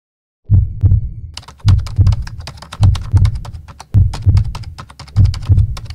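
Drum kit starting a funk groove on its own: paired kick-drum beats at an even, steady pace, with a hi-hat ticking in quick, even strokes from about a second in.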